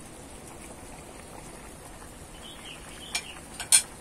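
Chicken and grated coconut simmering in a wide aluminium wok over a wood fire: a steady bubbling hiss with faint crackles. Near the end come a few sharp clicks, the last one the loudest.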